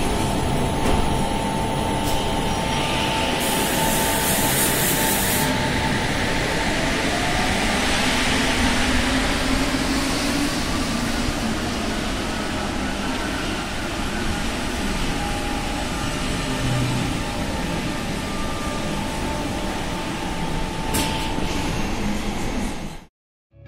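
Lyon MPL75 rubber-tyred metro trains running through the station, a steady rumble throughout. A brief hiss comes about four seconds in, and a motor whine rises in pitch between about eight and twelve seconds in. The sound cuts off suddenly near the end.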